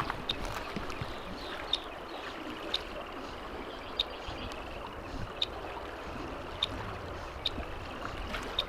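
Small creek or irrigation ditch water running steadily, with short high-pitched chirps repeating about once a second.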